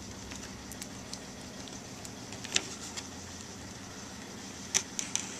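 Scissors snipping and working at the tape seal of a cardboard trading-card box: a sharp click about two and a half seconds in and a few more near the end, over a steady background hum.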